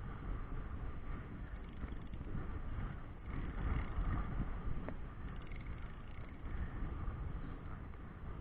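Wind buffeting the microphone in a steady, uneven low rumble, with choppy river water faintly behind it.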